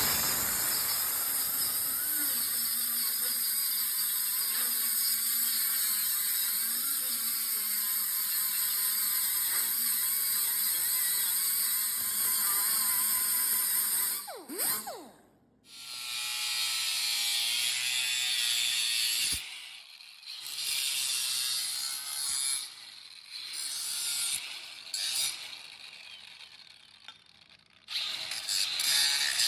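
A handheld power tool runs steadily and high-pitched for about fourteen seconds, then winds down with a falling pitch. After a pause it runs again in several shorter bursts.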